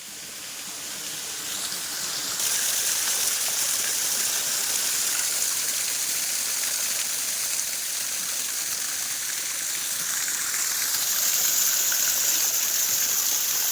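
Waterfall's falling water making a steady rushing hiss, growing louder over the first couple of seconds and jumping up sharply at about two and a half seconds.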